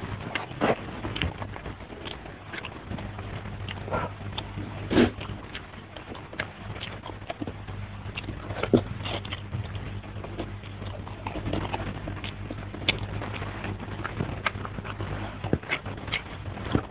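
Close-miked eating by hand: irregular wet chewing and lip smacks as mouthfuls of rice and fried pomfret are eaten, with fingers picking at food on a wooden tray. A low steady hum runs underneath.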